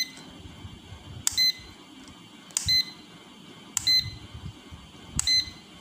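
Metravi DT 725 clamp meter beeping as its rotary range selector is clicked from one range to the next. There are five short, high-pitched beeps, one every second and a half or so, each just after the click of the switch.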